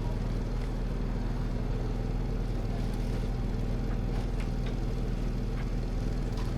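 A vehicle engine idling steadily, a constant low hum, with a few faint clicks and knocks over it.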